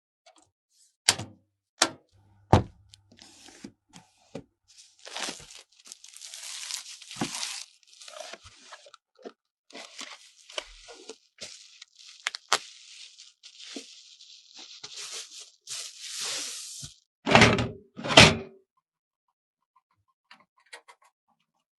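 Computer parts being handled during a PC build: a few sharp clicks, then a long stretch of crinkly rustling and tearing, then two heavy thunks near the end.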